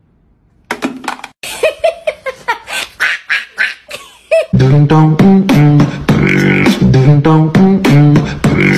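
Music made of vocal percussion: a rapid run of clicks and pops, then from about halfway a loud buzzing vocal riff repeating in short steady notes.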